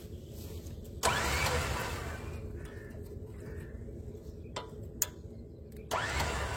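Electric winch on a Land Rover Defender being tested under radio remote control, its motor starting suddenly about a second in and running for about a second and a half. There is a sharp click shortly before it starts again near the end.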